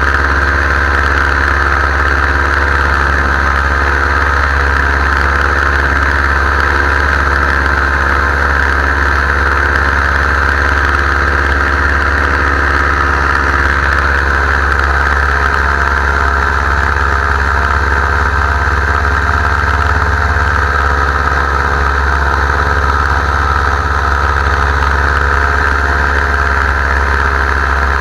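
Powered paraglider's paramotor engine and propeller running steadily at constant power.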